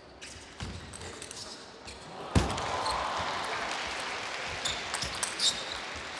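Table tennis ball clicking off the rackets and the table during a rally, with one sharp, loud hit about two and a half seconds in. After that hit a steady background noise from the hall fills the rest of the rally, with lighter ball ticks near the end.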